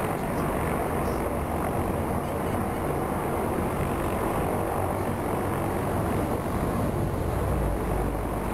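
Black Hawk helicopter flying, a steady rumble of rotor and engine noise.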